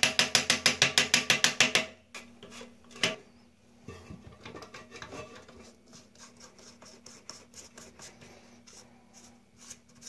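Small hammer rapidly tapping a flathead screwdriver set against the toilet tank's big plastic nut, about nine even taps a second, to knock the nut loose; the tapping stops about two seconds in. Then comes a single knock about three seconds in, and faint rubbing as the loosened plastic nut is turned off by hand.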